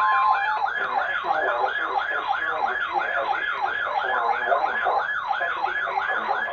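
Electronic yelp siren sweeping rapidly up and down, about four times a second, sounding as the attention signal of an emergency alert. A steady alert tone overlaps it briefly at the start, and the siren cuts off abruptly at the end.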